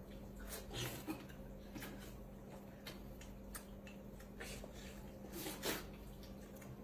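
Scattered faint wet clicks, smacks and rustles of people peeling and eating fruit at a table, a little louder about five and a half seconds in, over a faint steady hum.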